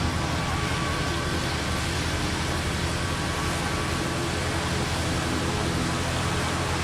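Steady rushing noise of wind and rain, with a steady engine-like hum underneath that holds level throughout.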